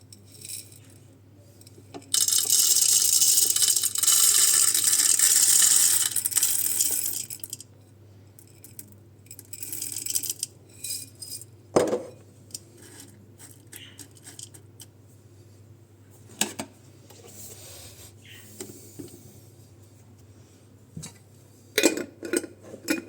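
Coffee beans rattling densely for about five seconds, followed by scattered clicks and knocks of handling.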